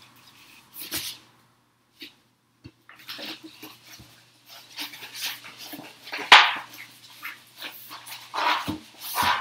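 A roll of marble-look self-adhesive vinyl contact paper rustling and crinkling as it is handled and unrolled on a laminate countertop, with a few knocks of the roll against the counter. The loudest knock comes about six seconds in.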